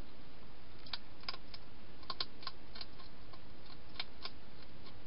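Wild hedgehog crunching dry food in a plastic feeding box: an irregular run of sharp clicks and crunches, thickest in the middle, over a steady hiss.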